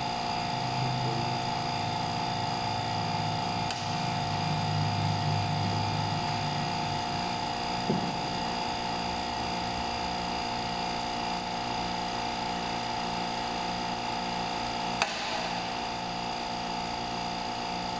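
Hydraulic pump of a concrete compression-testing machine running with a steady hum while it slowly raises the load on a concrete test cylinder. Two short, sharp clicks come about halfway through and near the end.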